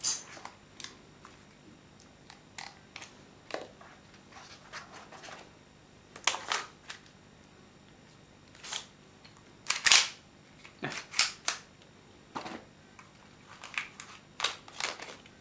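Scattered sharp clicks and clacks from handling a gas blowback airsoft pistol and its case, at uneven intervals, loudest about ten seconds in.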